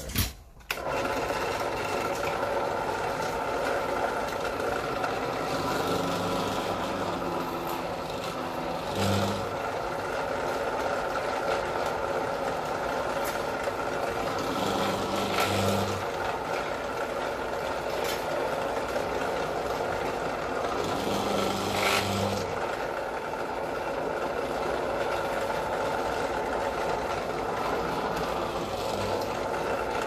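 Benchtop drill press motor running steadily, with a few short changes in its sound as the bit is fed down into a wooden piece held on the table.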